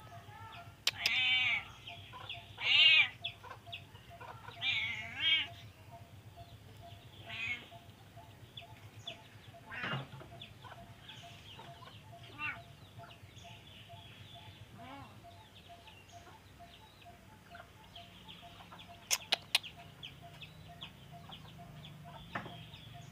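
Animal calls: a handful of short calls with wavering pitch in the first eight seconds, loudest about three seconds in, then fainter ones. A few sharp clicks come near the end.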